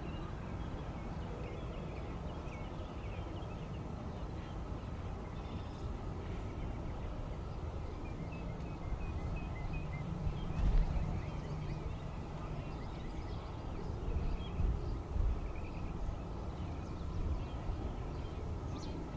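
Small birds chirping over a steady low outdoor rumble, with a few brief low thumps near the middle.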